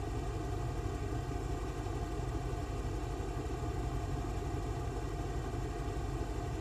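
A steady mechanical hum with a low rumble that does not change.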